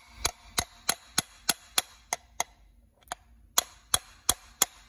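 Quick metallic hammer taps on the end of the crankshaft of an Echo PB-770T two-stroke blower engine, about three a second with a brief pause near the middle. The taps are driving the crank through to split the crankcase halves apart.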